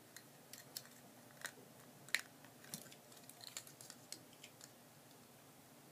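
Faint, scattered light clicks and ticks from a digital caliper being handled and its jaw slid, about a dozen of them, the sharpest about two seconds in.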